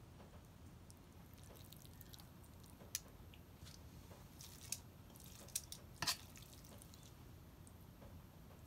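Spaghetti in basil sauce being laid onto a ceramic plate with metal tongs: faint wet squishes and a few light clicks, the loudest about six seconds in.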